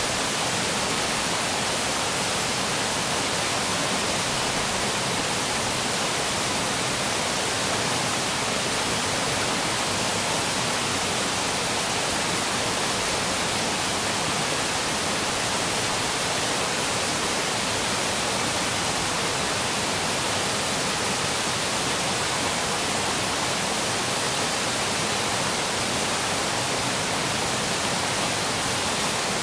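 Steady rushing of a rocky river: an even, unbroken hiss of flowing water.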